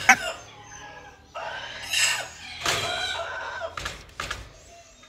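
White-breasted waterhen (ruak-ruak) giving loud, harsh calls from about one and a half to three seconds in. Sharp knocks come at the start and twice near the end.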